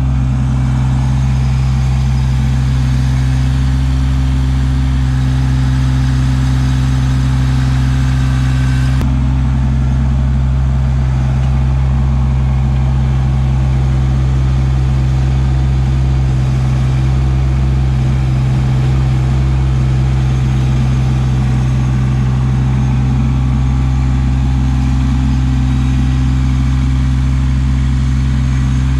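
Kubota LX2610 compact tractor's three-cylinder diesel engine running steadily while the tractor works its front-loader grapple.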